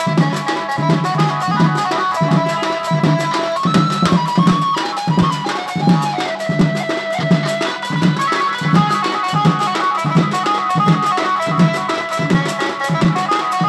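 Folk dance music: a drum beating a steady rhythm of about two strokes a second under a held melody line that steps from note to note.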